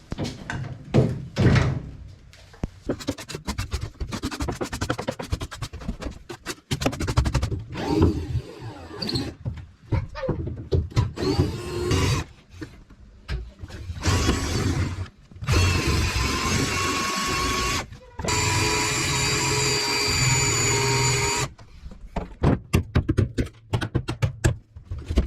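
A handheld power tool runs in sustained stretches of a few seconds in the second half, between many sharp clicks and knocks of tool work on fittings being unbolted.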